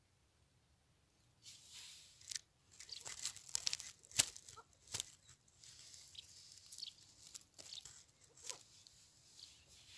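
Dry straw and reed stalks rustling and crackling close by, starting about a second and a half in, with a run of sharp crackles that is loudest about four seconds in, then lighter rustling.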